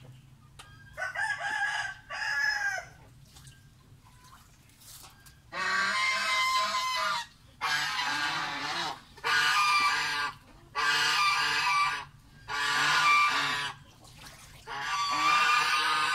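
Domestic poultry calling loudly: two short calls, then a run of six long calls, each a second or more, with short gaps between.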